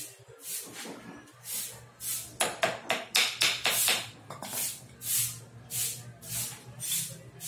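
A stiff brush scrubbing a motorcycle's front wheel hub: a run of short scratchy strokes, sparse at first, then about three a second from about two seconds in.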